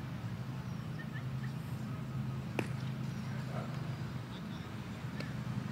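Steady low outdoor rumble, with one sharp crack about two and a half seconds in and a fainter click near the end.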